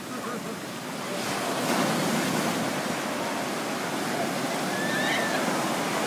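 Sea surf washing up a sandy beach: a wave breaks and its foam rushes in through the shallows, the wash swelling from about a second in and staying up.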